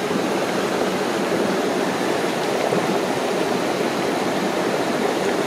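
Steady rushing of a river's flowing water, an even noise without pauses.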